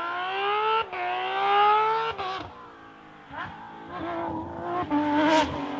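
Rally car engine under hard acceleration. Its pitch climbs and drops sharply at an upshift, twice in the first two seconds or so. The sound falls away around three seconds in, then picks up again and holds a steadier note.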